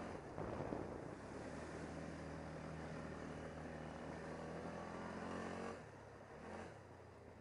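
ATV engine running at a steady pitch while the quad drives over muddy ground, with a rushing noise over it in the first second. About six seconds in the engine sound drops off as the throttle is eased.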